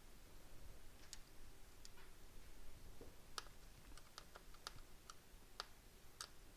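Faint, irregular small clicks of a screwdriver working out the screws that hold a laptop's screen, with a cluster of quick clicks around the middle.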